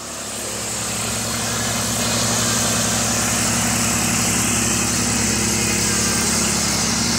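Cub Cadet wide-cut walk-behind lawn mower's engine running steadily while mowing grass, a loud, even hum with a strong hiss. It grows louder over the first couple of seconds, then holds steady.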